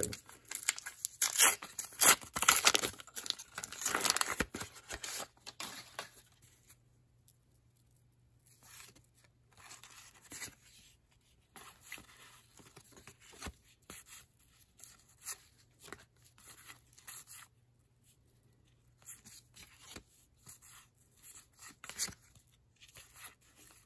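Foil wrapper of a baseball card pack being torn open and crinkled for about the first five seconds. After that come quieter, scattered rustles and light clicks as the stiff cards are slid and flipped one by one.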